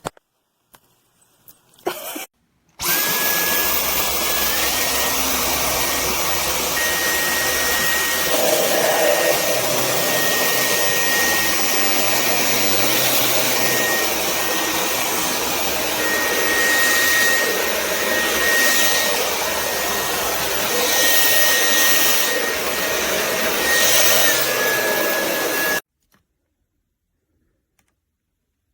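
Dyson V10 Animal cordless stick vacuum running, a steady rush of air with a thin high motor whine that steps up in pitch a couple of seconds after it starts and drops back shortly before it cuts off suddenly.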